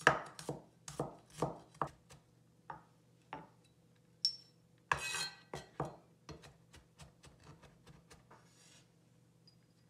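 Chinese cleaver mincing garlic on a plastic cutting board: sharp chops about two a second, thinning out after two seconds. Near five seconds in, the blade scrapes across the board to gather the garlic, followed by lighter, quicker chops.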